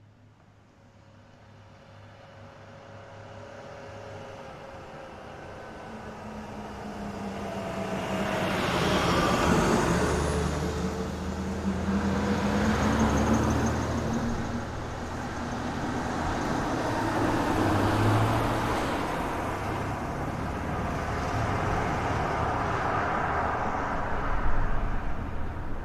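Car drive-by: an engine and tyre noise approach gradually, grow loud about nine seconds in, and the engine tone drops in pitch as it passes. More vehicles pass after it, with louder swells a few seconds apart.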